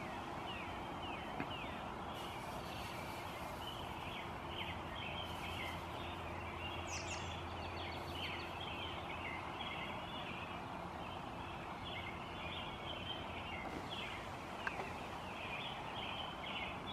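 Many birds chirping together in a dense run of short, quick calls over steady outdoor background noise, typical of a dawn chorus. A faint low hum runs under the first half.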